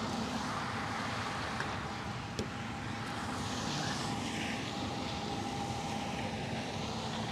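Combine harvester engine running steadily, a continuous droning hum.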